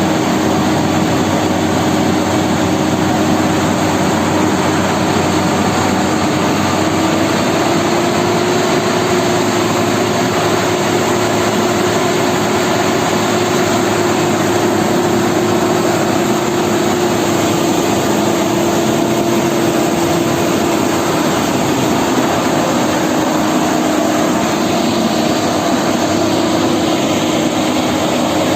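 Heavy vehicle engines running steadily, a loud drone with one held tone that rises slightly about seven seconds in and eases back down later.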